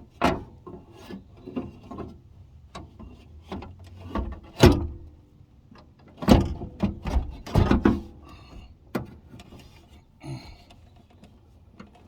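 Irregular knocks, scrapes and rubbing from the rear door of a 1984 Buick LeSabre as its window, window sweep and door parts are worked by hand, with a sharp knock near the middle and a run of heavier knocks just after.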